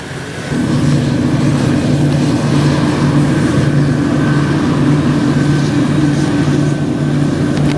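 Large farm-machinery engine running at a steady speed, setting in about half a second in, with a faint steady higher whine above it.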